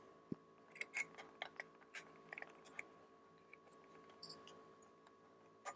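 Faint scattered clicks and light taps of small watercolor half pans being handled and pressed into the slots of a metal watercolor tin.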